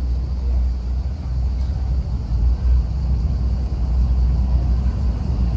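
Low, steady rumble of a boat underway, its engine drone mixed with a faint hiss of wind and water.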